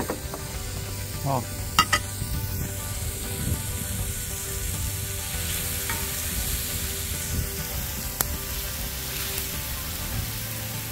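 Chopped onion, spring onion and tomato sizzling steadily in a pan, the vegetable base of a moqueca frying before the fish goes in. A couple of sharp clicks come about two seconds in and another near eight seconds.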